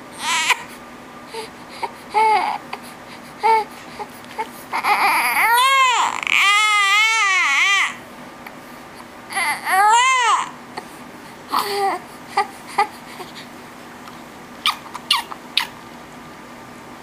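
Newborn baby fussing with short whimpers, then crying: a long wail about five seconds in and a shorter one about ten seconds in, then a few brief fussy sounds.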